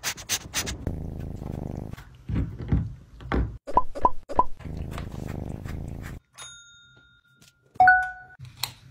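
Desk service bell dinging twice near the end: a clear ring that fades over about a second, then a shorter, lower ding. Before that come scattered clicks and knocks over a low rough noise.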